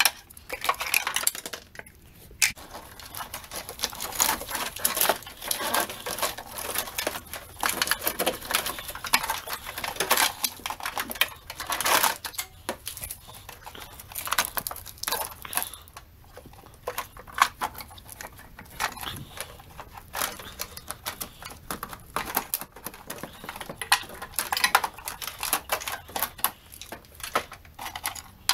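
Hand tools and plastic and metal engine-bay parts clicking and rattling, unevenly and almost without pause, as wiring and the fuse and relay box are worked loose from a car's engine bay.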